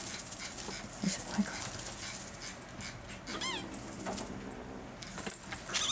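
Maine Coon kitten giving one short, high mew about halfway through, among small scratches and rustles of paws on a plush cat bed, with a run of louder clicks and scratches near the end.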